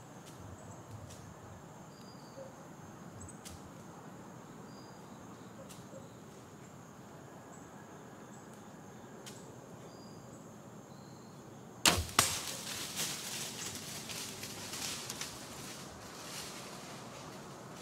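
A bow shot at a whitetail doe: the sharp snap of the string on release and a second crack a fraction of a second later, then the deer crashing off through dry leaf litter for about four seconds before it fades.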